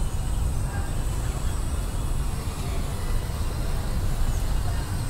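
Steady low rumble of a car's engine and tyres while driving slowly on a paved street, heard from inside the cabin.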